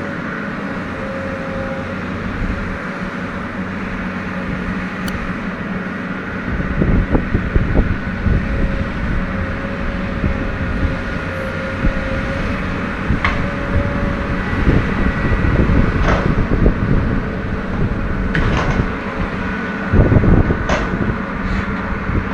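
Diesel engine of a log-handling material handler running, with a steady hydraulic whine. From about seven seconds in, irregular knocks and clatter come as logs are gripped and moved, with the engine working harder.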